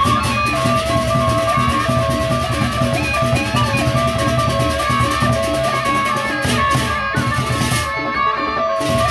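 Baleganjur gamelan ensemble playing: large double-headed barrel drums beat steadily under ringing bronze gong-chimes that repeat held tones. Splashes of cymbals break in about six and a half seconds in and again near the end.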